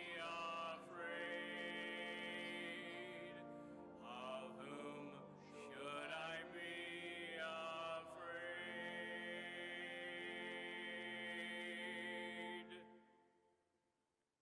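Male cantor singing the responsorial psalm with instrumental accompaniment, phrases of sung melody ending on a long held note that dies away near the end.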